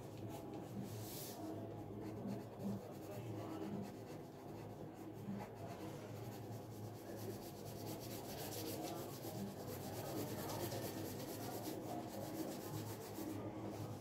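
Pencil scratching on paper in quick, short strokes as palm fronds are sketched. The strokes get busier and louder about halfway through and ease off just before the end, over a steady low hum.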